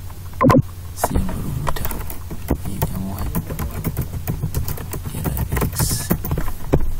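Computer keyboard typing: a fast, uneven run of keystrokes over a steady low hum, with one loud short sound about half a second in.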